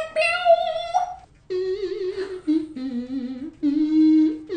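Vocal imitation of an electric guitar: a held, buzzy sung note that breaks off about a second in, then a second run of voice-made guitar notes with a wavering vibrato, stepping lower and back up.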